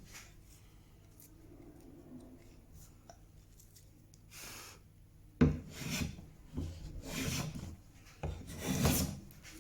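Hand plane taking strokes along a wooden leg against wild, changing grain: after a quiet few seconds, about five quick shaving strokes in a row in the second half.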